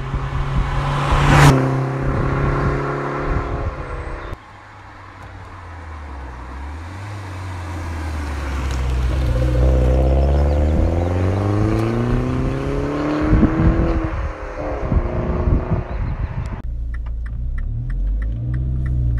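Mini Cooper S (R56) hatchback driving past at speed, its engine note peaking sharply as it passes about a second and a half in. Then the car accelerates away, its turbocharged four-cylinder engine note rising steadily in pitch for several seconds before breaking off.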